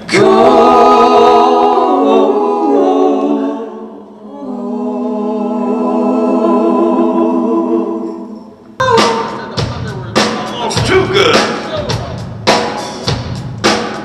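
Several voices singing a cappella in close harmony, long held chords that slide from one to the next. About nine seconds in this cuts abruptly to the full rock band playing, with sharp drum kit hits.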